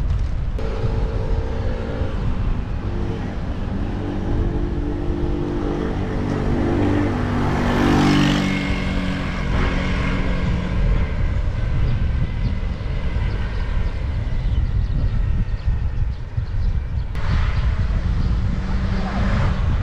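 Street traffic over a steady low rumble; a vehicle approaches and passes close about eight seconds in, its engine note falling as it goes by.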